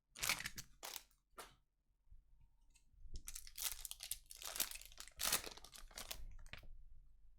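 Foil trading card pack wrappers being torn open and crinkled: a few short tearing rasps, then a longer run of crinkling and tearing.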